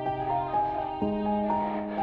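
Background music: an instrumental passage of a pop song, with sustained notes changing every half second or so.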